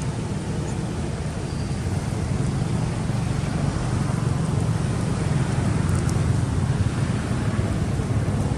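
Steady low rumbling noise with no distinct events apart from a faint click about six seconds in.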